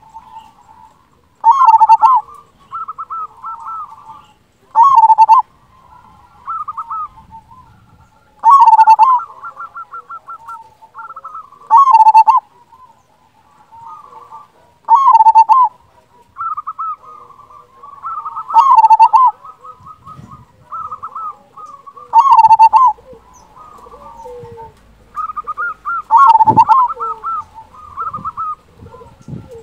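Zebra dove (perkutut) singing its cooing song: a loud coo about every three to four seconds, with quieter rapid rolling coo notes in between.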